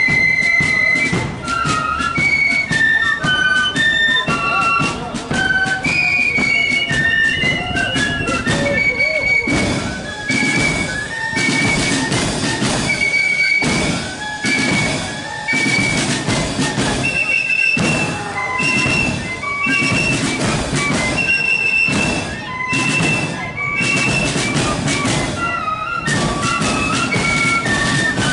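Marching flute band playing a tune in unison on side-blown flutes, with drums beating a steady marching rhythm underneath.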